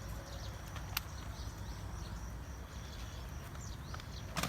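Outdoor ambience: a steady low rumble like wind on the microphone, with faint high bird chirps. A sharp click sounds about a second in and another near the end.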